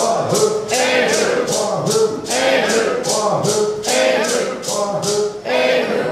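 Voices singing a Cherokee friendship dance song over a rattle shaken in a steady beat, about three shakes a second.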